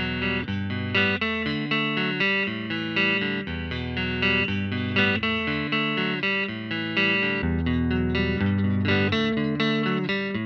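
Fender Mexican Telecaster electric guitar played through an amp for a tone test: a continuous passage of plucked notes and chords, changing several times a second over held low notes.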